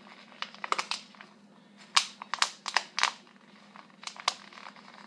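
A plastic water bottle crinkling and cloth rustling in the hands as a hair tie is stretched and wrapped around the cloth over its cut end: irregular sharp crackles in clusters, loudest around two to three seconds in, over a low steady hum.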